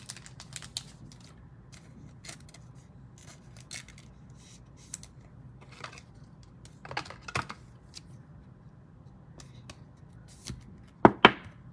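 Trading cards being handled and sorted, with scattered light clicks and snaps of card stock and a louder pair of snaps near the end.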